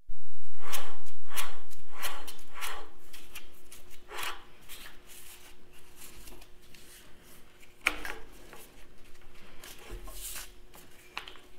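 Scraping and rubbing handling noise as gloved hands work the rubber fan belt around the water pump pulley: a string of short scrapes, loudest in the first couple of seconds, over a faint steady hum.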